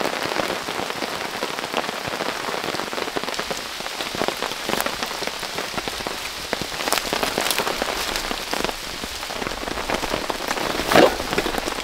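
Steady heavy rain falling and pattering on surfaces, with scattered sharper drop hits. A brief louder sound stands out about a second before the end.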